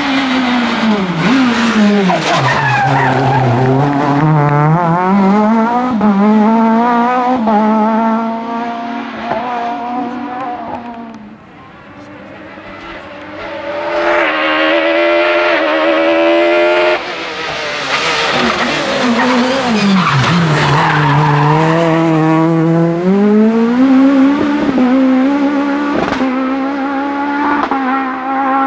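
Kit Car rally car's high-revving two-litre four-cylinder engine driven hard, its pitch climbing in steps through upshifts and dropping sharply on braking and downshifts. The sound fades briefly about halfway through, then builds again to high revs.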